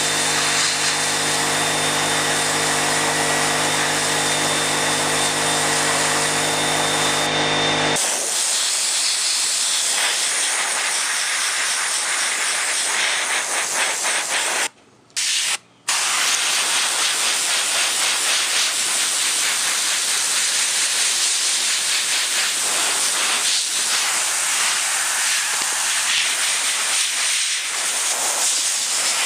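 Airbrush spraying paint: a steady hiss of air and paint. For roughly the first eight seconds a motor hum with a faint whine runs under the hiss, then stops suddenly. The hiss cuts out twice briefly around the middle.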